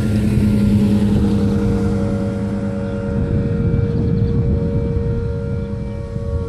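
Outdoor tornado warning siren sounding its test, holding a steady tone at full pitch. A second, lower tone drops out about three seconds in, and a low steady rumble runs underneath.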